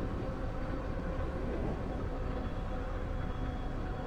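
An electric bike riding along a paved road: steady wind rush on the microphone and tyre noise, with a faint steady whine.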